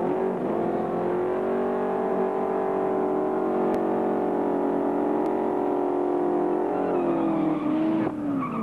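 1969 Ford Mustang fastback's engine held at high, steady revs in a burnout while the rear tyres spin and smoke; near the end the revs drop away.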